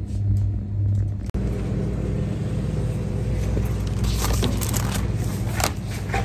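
Shopping cart rolling across a store floor: a steady low rumble, with scattered rattles from the wire basket in the second half and a brief break about a second in.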